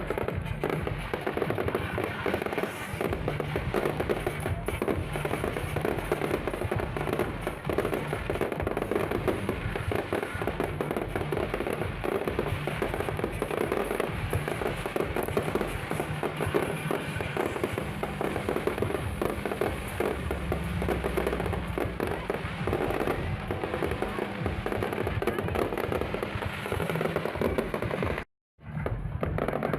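Fireworks display: a dense, continuous crackle of bursts and pops, with music playing underneath. The sound cuts out completely for about half a second near the end.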